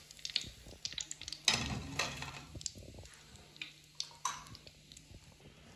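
Wire skimmer clinking against the wok and plate as fried chicken pieces are lifted out, scattered sharp clicks with one louder clatter about one and a half seconds in, over the faint crackle of the hot frying oil.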